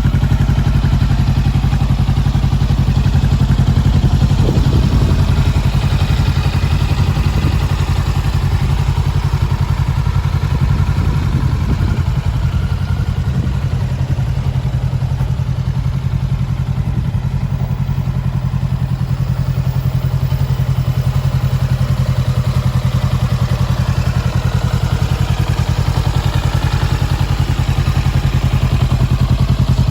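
Honda CBR400R's parallel-twin engine idling steadily through a Moriwaki aftermarket silencer, with a slight lift in revs now and then.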